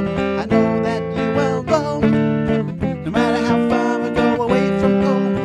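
Acoustic guitar strummed in repeated chords at a steady rhythm.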